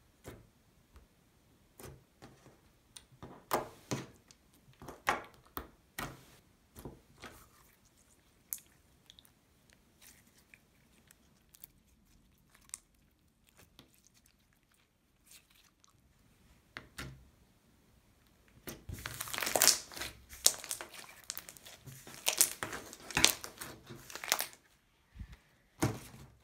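Clear, thick putty slime squeezed and poked by hand, giving scattered clicks and pops, then a denser run of crackling, squishy clicks for several seconds near the end.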